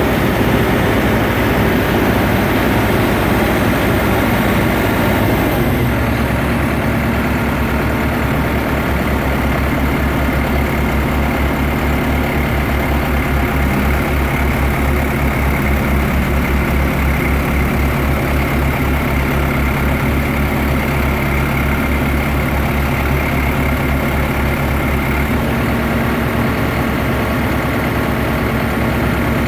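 Tractor-mounted HAM300 tower yarder's engine running steadily under work. About five and a half seconds in the sound shifts to a low, even pulsing that holds to the end.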